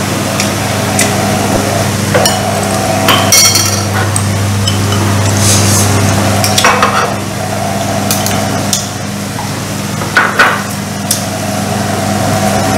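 Chopsticks and spoons clicking and tapping against ceramic bowls and plates as people eat, a dozen or so short sharp knocks at irregular moments, over a steady low hum and hiss.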